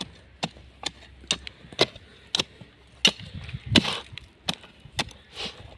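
Metal hand trowel striking and scraping dry, stony soil, loosening the bottom of a planting hole. The strikes come about two a second, with one longer, louder scrape a little before the middle.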